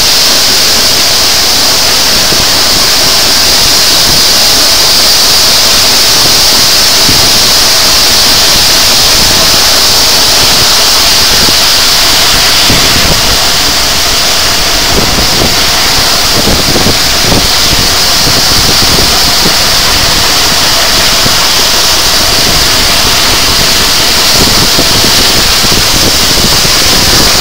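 Steam-hauled passenger train behind 60163 Tornado, a Peppercorn A1 Pacific, running at speed, heard from an open carriage window: a loud, steady rush of air and running noise, with an uneven low flutter in the second half.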